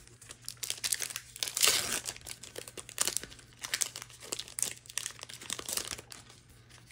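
A trading-card booster pack's foil wrapper crinkling and tearing as it is opened, in a quick string of rustles, loudest about two seconds in.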